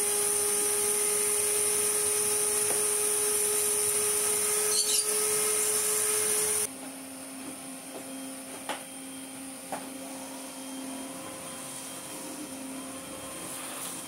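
Makita DVC560 cordless vacuum cleaner running with its wand: a steady motor whine with a strong airy hiss. About six and a half seconds in the sound drops suddenly to a quieter, lower-pitched steady hum, with a couple of light knocks.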